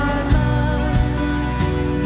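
Live worship band playing a slow song: electric bass and held chords, with low drum thumps keeping the beat.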